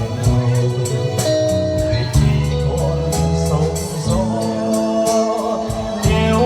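Instrumental passage of a slow ballad between sung lines: sustained bass and held melody notes over a regular beat.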